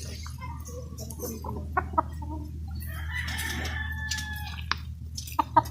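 A chicken clucking in short calls, with a faint drawn-out call about three seconds in, over a steady low hum.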